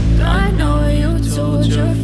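Background music: a sustained electronic pad and bass with a sliding melodic line, no vocals.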